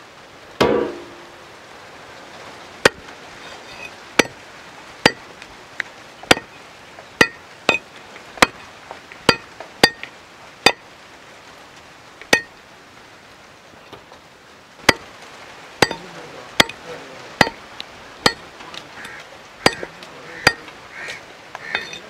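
A large knife chopping raw black chicken pieces on a wooden log chopping block. The blade makes a series of sharp chops into the wood, about one a second, with a short pause a little past the middle.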